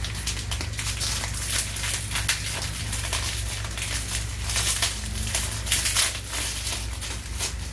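Clear plastic wrapping crinkling and crackling in irregular bursts as a small wrapped lotion bottle is handled and turned over, over a steady low hum.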